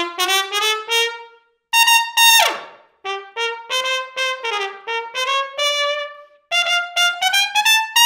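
Perinet (piston-valve) trumpet played through a Breslmair mouthpiece, as a tone example for comparing mouthpiece backbores. It plays a short melodic passage of mostly rising notes, broken by brief pauses. The loudest, highest note comes about two seconds in and ends in a downward fall.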